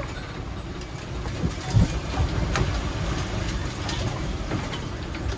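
Steady low rumble of a sailboat under way in rough seas, heard from inside the cabin, with a few scattered knocks and clinks from the galley.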